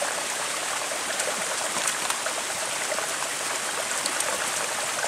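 Small mountain brook trickling over a low log check dam and among stones: a steady rush of running water.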